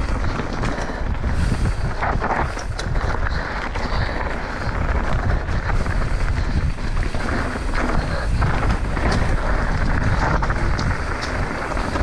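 Mountain bike riding fast down dry dirt singletrack: wind rushing over the camera microphone and tyres rolling over dirt and leaves, with frequent short rattles and knocks as the bike goes over bumps.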